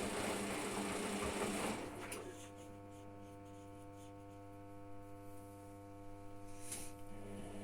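Hotpoint washing machine during its rinse and spin cycle. The noisy running sound stops about two seconds in and leaves a steady low electric hum with a click; the noisy running picks up again near the end.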